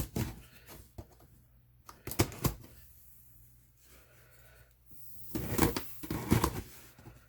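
Cardboard shipping box being opened by hand: a few sharp knocks and clicks, then a stretch of scraping and rustling about five seconds in as the box is cut and pulled open.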